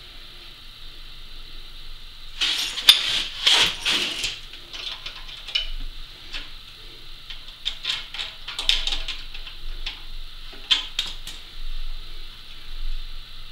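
Steel hand tools clinking and clattering against the steel threaded-rod foot and the milling machine's cast base as the foot is fitted and worked into place. A spell of louder clatter comes about two to four seconds in, followed by scattered clicks and clinks.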